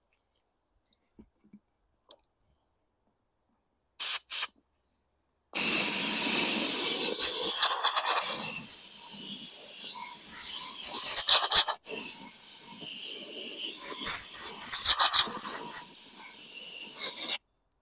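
Compressed-air blowgun hissing in two short blips about four seconds in, then blowing almost without a break for about twelve seconds, rising and falling as it is aimed, blasting dirt out of small-engine fuel-system parts.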